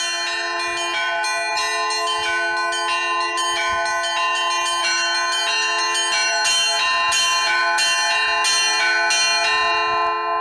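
Russian church bells rung from ropes: the three small zazvon (treble) bells struck together as one chord, alternating with the podzvon (middle) bells ringing steady quarter notes, in many quick strikes. The strikes stop near the end and the bells ring on.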